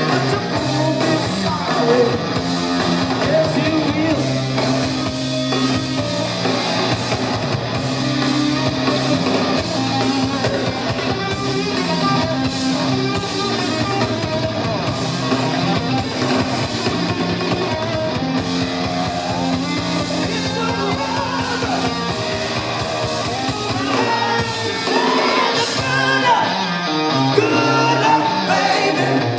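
Rock band playing live, heard through the venue's PA: electric guitar, bass and drums, with a voice singing over the band.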